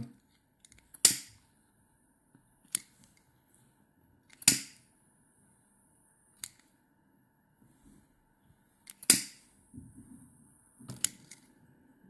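A lighter clicked three times to singe a pheasant feather clamped in a metal wing burner. Each strike is a sharp snap, and twice it is followed by the hiss of gas for about two seconds while the flame burns, ending in a softer click as it is let go.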